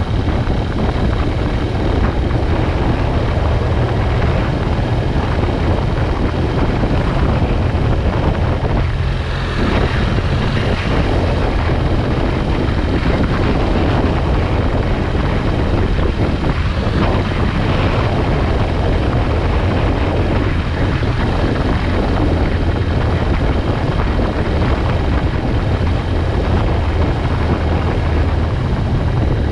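Motorcycle riding at a steady road speed: the engine runs steadily under a constant rush of wind and road noise on the bike-mounted microphone.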